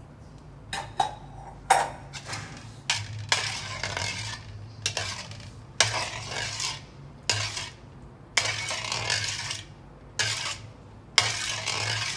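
Spoon stirring and scraping in a cooking pot, mixing sugar into hot palmyra fruit pulp, in a series of strokes about a second apart, several starting with a sharp clink.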